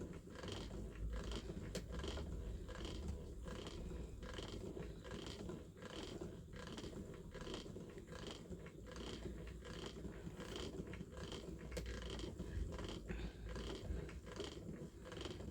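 Ashford Kiwi 2 spinning wheel turning under slow treadling: faint, regular ticking and creaking from the wheel and treadle.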